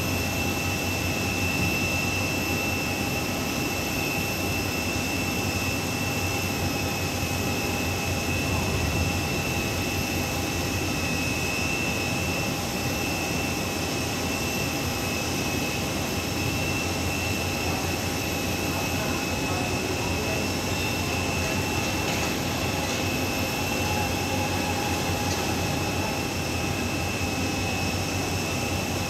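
Jet airliner standing at the gate with a steady, unchanging high whine over a low rumble.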